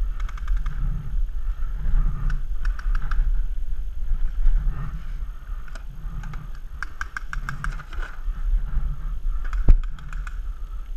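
Paintball markers firing: scattered runs of sharp pops, a quick string of about six shots a little past halfway, and one much louder single pop near the end. Under them are a steady low rumble and soft low thuds about once a second.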